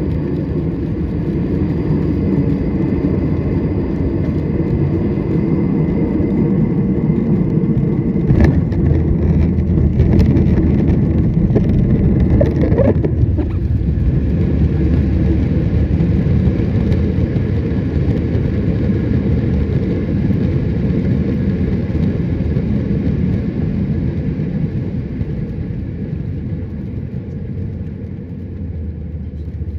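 Cabin noise of a Boeing 737 MAX 9 on landing: a loud, steady rumble of engines and airframe, with two sharp knocks about eight and ten seconds in. The rumble swells for a few seconds, then gradually eases toward the end.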